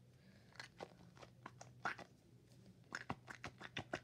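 Cat-shaped Nee-Doh squishy stress ball squeezed in the hands, giving a run of small, irregular clicks and crackles.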